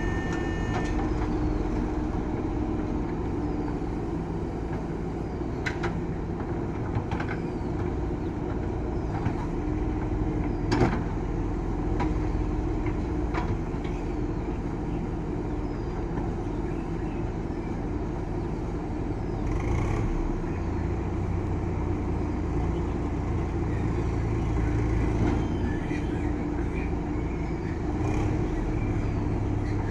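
JCB backhoe loader's diesel engine running steadily under work, its note shifting a few times. Scattered short knocks and clanks, the loudest a sharp knock about eleven seconds in.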